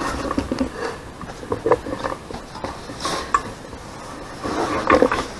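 Scattered light knocks and handling clatter, with sharper taps about three and five seconds in.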